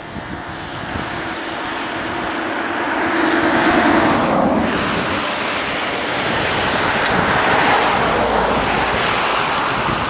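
A passing vehicle: a steady rushing noise that swells to a peak about four seconds in and stays up, with a faint hum under it around the peak.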